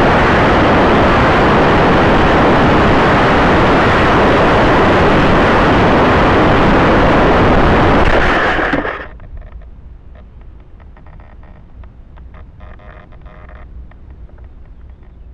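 Loud, steady rush of airflow over the onboard camera of a flying-wing model plane gliding down with its motor torn loose from its mount. It cuts off abruptly about nine seconds in as the wing comes to rest in the grass, leaving faint crackling and rustling.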